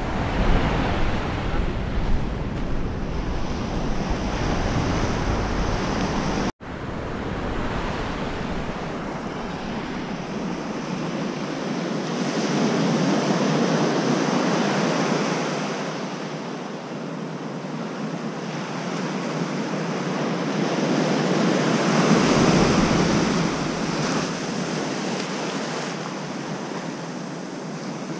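Surf breaking and washing up a sandy beach, with wind buffeting the microphone. The wash rises and falls in slow swells and is loudest twice, in the middle and again near the end. The sound drops out for an instant about six seconds in.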